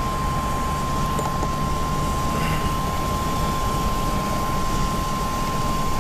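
Steady road and engine noise of a moving car, heard from inside, with a low rumble. A single unbroken electronic tone sounds over it throughout.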